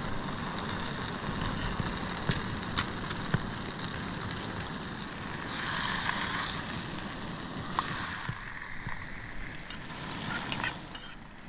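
Mushrooms and a steak frying in a pan on a camping stove: a steady sizzle that gets louder for about a second around the middle, with a few light clicks.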